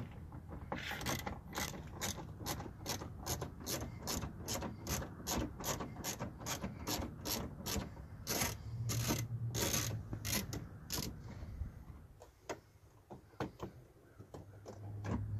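Hand socket ratchet on a long extension clicking in a steady rhythm, about two to three clicks a second, as a 10 mm door-panel bolt is backed out. The clicking stops about eleven seconds in, and only a few scattered clicks follow.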